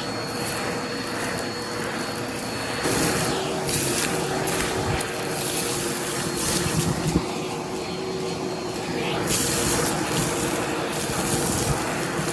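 Vacuum cleaner running with a dusting brush attachment: a steady motor whine over rushing air. The whine drops a little in pitch about three seconds in, and the air noise swells and fades as the brush works.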